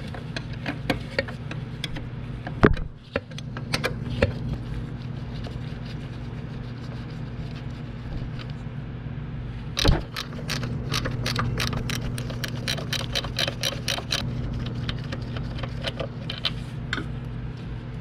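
Metal hand tools clicking and clinking on the bolts of a sawmill bearing and gearbox being taken apart, with a quick, even run of clicks, about five a second, starting about ten seconds in, over a steady low hum.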